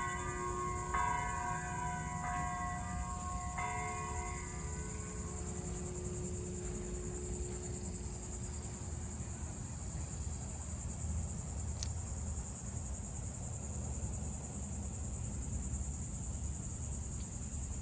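Church bells tolling their last few strokes, about one every second and a half, the final one about four seconds in and ringing away over the next few seconds. Under it, a steady high-pitched insect drone.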